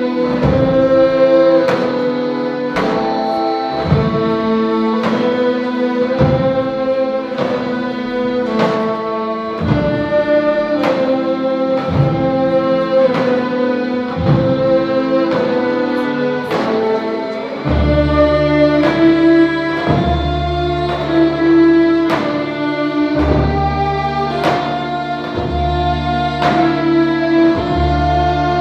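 Macedonian oro folk dance music: a sustained melody line over tapan drum strokes about once a second. About eighteen seconds in, a deep bass pulse joins the beat.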